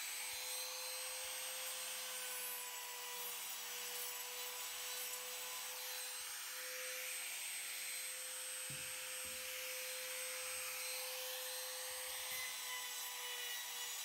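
Compact trim router running steadily at full speed, a constant high whine over a hiss of air.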